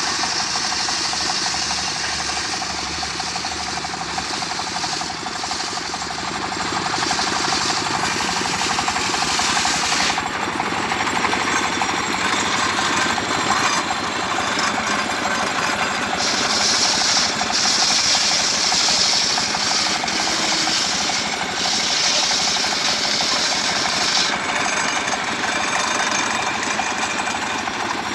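Homemade circular sawmill running: its engine keeps up a steady, rhythmic chug while the large circular blade rips lengthwise through a mango log. The high hiss of the cut comes in two long passes, in the first third and again in the second half.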